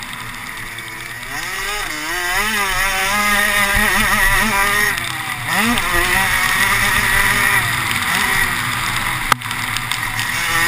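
A race vehicle's engine heard from an onboard camera, its pitch rising and falling repeatedly as the throttle is worked, over a steady rushing noise. A sharp click comes about nine seconds in.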